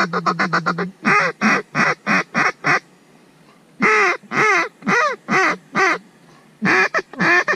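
Mallard duck call blown close by: a fast rattling chatter, then three strings of short quacks at about three a second, with short pauses between them.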